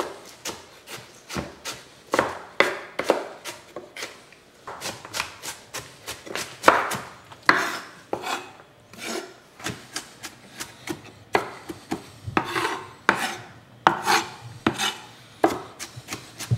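Kitchen knife chopping and mincing a white onion on a wooden cutting board: an irregular run of sharp knocks against the board, mixed with longer scraping strokes as the blade is rocked and drawn through the onion.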